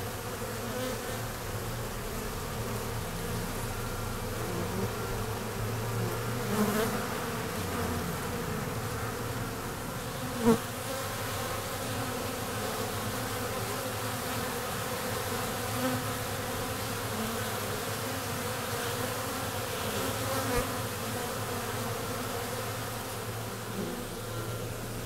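Honeybees buzzing at the hive entrance: a steady, layered hum of many wings. There is one short sharp click about ten seconds in, with smaller ones near 7 and 21 seconds.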